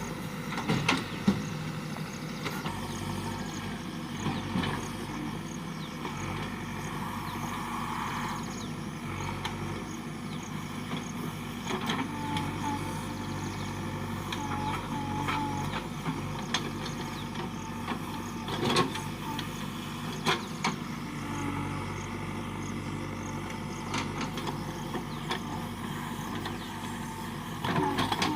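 JCB backhoe loader's diesel engine running steadily under work, with a few sharp knocks and clanks from the machine now and then.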